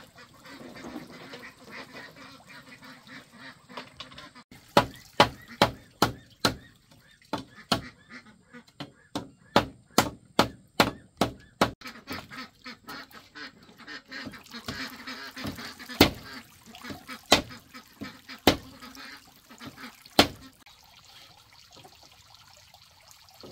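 Machete blade chopping into a green bamboo pole laid on a wooden block: a fast run of sharp chops about two a second, then four slower single strokes.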